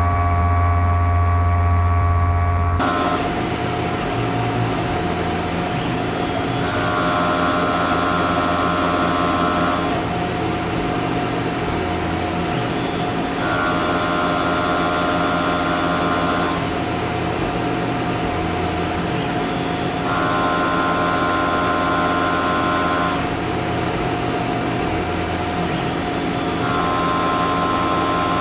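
Tormach CNC mill running, a steady machine whine with a higher cutting tone that comes in for about three seconds every six to seven seconds as the cutter works in and out of the part. A deeper, louder hum cuts off about three seconds in.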